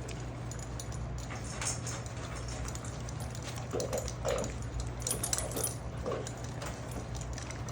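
Six-week-old puppies giving a few short whimpers, about four and six seconds in, while they eat, over scattered small clicks and a steady low hum.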